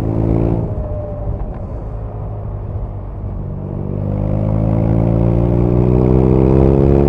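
BMW R nineT's air/oil-cooled boxer twin under way: a short burst of revs at the start, then a steadier, lower note, then from about three seconds in a long, steady rise in revs as the bike accelerates.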